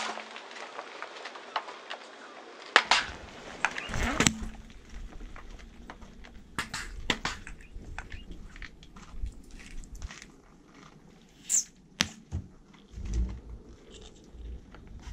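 A car tyre rolling over and crushing a row of small liquid-filled plastic cubes: scattered crackles, pops and squishes as the cubes give way under its weight, with a few louder pops.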